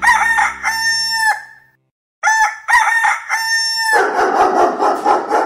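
A rooster crowing twice, each crow about a second and a half long, followed by a noisier stretch of clucking-like calls.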